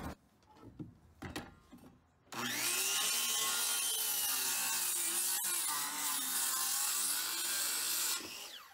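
Corded DeWalt circular saw started about two seconds in, spinning up and cutting through a 2x6 board with a steady whine for about six seconds, then winding down as it is released.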